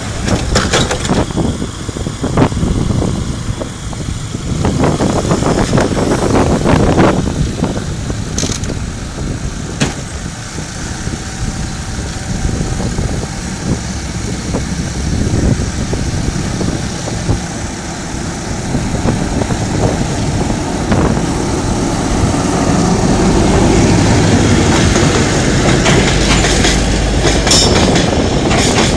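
Diesel locomotive hauling a train of empty coal hopper wagons approaches and passes close by. The running noise of engine and wheels builds and is loudest over the last third as the wagons roll past.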